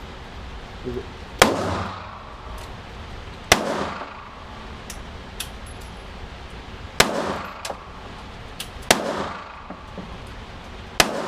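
AR-15 rifle fired five times at an uneven pace, a couple of seconds apart, each shot loud with a short echoing tail.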